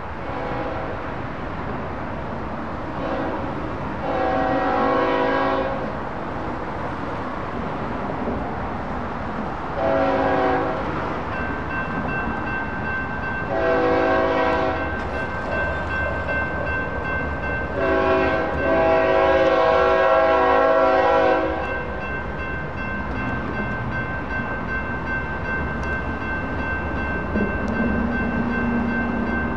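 BNSF freight locomotive air horn sounding four blasts for a grade crossing, the last held about three and a half seconds, over the rising rumble of the approaching train. A steady electronic crossing bell rings from about halfway through.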